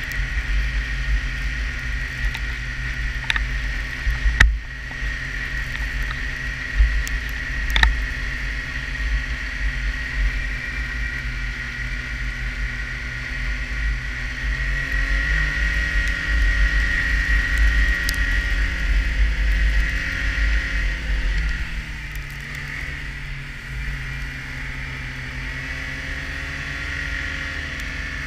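Snowmobile engine running under way, with a steady high whine and a low rumble of wind on the microphone; the engine pitch rises about halfway through and eases back down a few seconds later. A couple of sharp knocks about four and eight seconds in.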